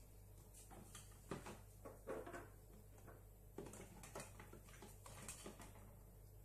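Faint scattered ticks and crackles from a saucepan of spiced water heating on the hob toward a simmer, over a low steady hum.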